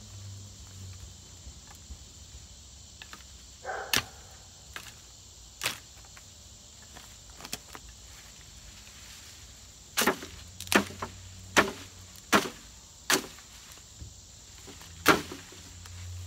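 Sharp chopping strikes of a hand-swung cane cutter blade slashing through tall weed stems: two spaced strokes, then a quick run of about five less than a second apart, and one more near the end. Crickets or other insects trill steadily behind.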